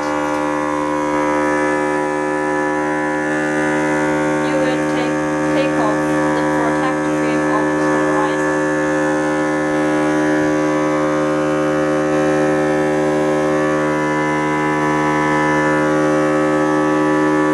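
Vacuum pump of a polarizer film laminating machine running, a steady hum of several even tones, as it holds the polarizer film down on the phone LCD.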